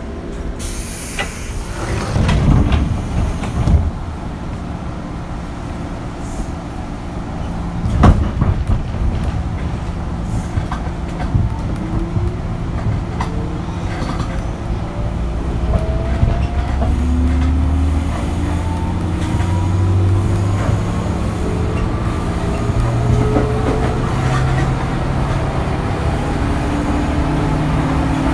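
JR 205 series electric train's traction motors heard from aboard, their whine rising steadily in pitch as the train picks up speed from about twelve seconds in, over a growing low rumble. A burst of hiss and some knocks near the start, and a single sharp knock about eight seconds in.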